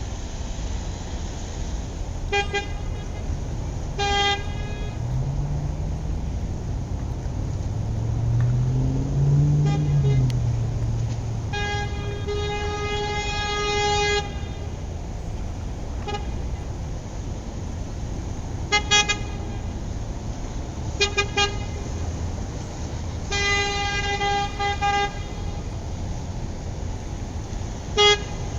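A single-tone horn honking in short toots and a few longer blasts of a second or two, over a steady low rumble of engine or traffic. A low motor tone rises and falls in the first third.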